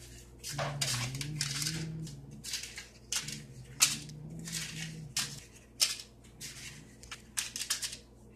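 Paper muffin liners crinkling and rustling as they are peeled apart from a stack and pressed into a muffin pan, a run of short, irregular crackles.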